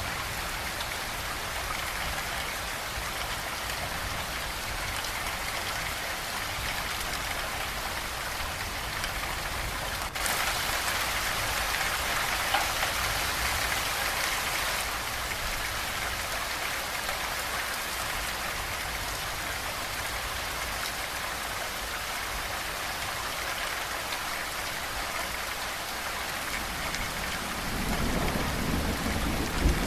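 Steady rain falling, turning heavier for a few seconds from about ten seconds in. A low rumble of thunder builds near the end.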